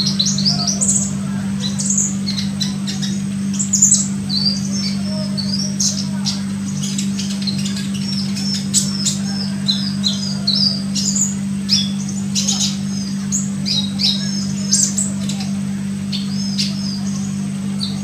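Olive-backed sunbird chirping and twittering in rapid, high, thin notes, over a steady low hum.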